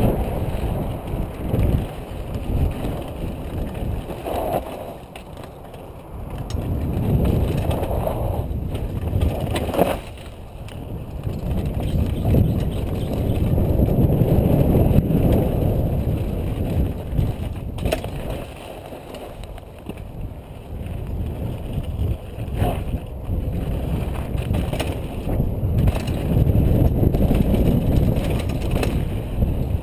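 Specialized Big Hit downhill mountain bike descending a dry dirt and rock trail, heard from a helmet-mounted camera: a rough rumble of wind on the microphone and tyres rolling over dirt and stones that swells and dips, broken by sharp knocks and rattles as the bike hits rocks.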